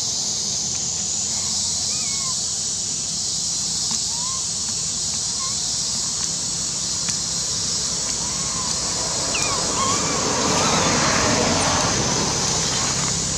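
Outdoor ambience: a steady high-pitched hiss with short, high chirping calls about every second. A louder stretch of rustling noise comes near the end.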